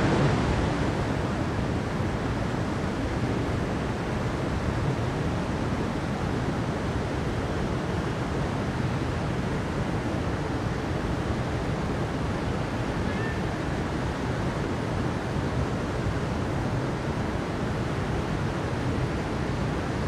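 Steady, unbroken rush of water from a mountain stream cascading over rocks.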